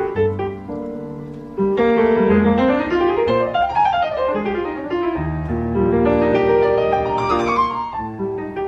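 Piano music, with fast runs of notes climbing and falling in the middle.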